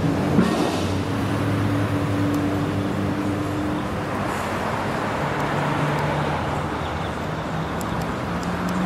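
Street traffic noise: vehicle engines running and passing, with a steady engine hum. A short knock sounds about half a second in.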